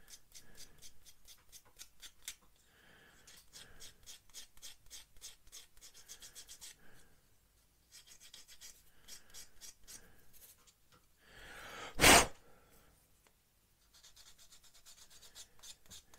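Sanding stick rubbed back and forth along the painted edge of a plastic model-kit bulkhead, in quick scratchy strokes about five a second, in several runs with short pauses: paint is being sanded off the joint to expose bare plastic for gluing. About twelve seconds in, one sharp, loud puff of breath blows the dust away.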